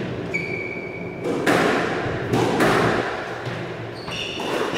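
Squash rally in a court: the ball cracks off rackets and walls in several sharp hits, with shoes squeaking on the wooden floor in short high squeals.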